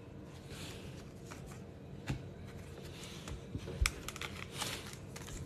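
A few faint, scattered taps and clicks of foil-wrapped trading card packs being handled and picked up from a stack on a table.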